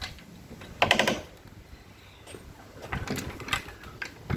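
Roadside service truck's compartment doors and latches being shut: a clunk about a second in, a few knocks around three seconds, and a sharp slam at the end.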